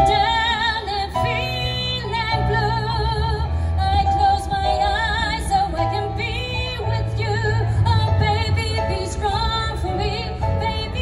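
Music: a woman singing with vibrato over instrumental backing.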